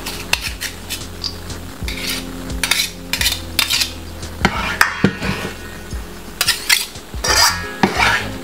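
Kitchen utensils clattering: a run of sharp clicks and knocks of metal on metal and on hard kitchen surfaces, coming thicker and louder in the second half.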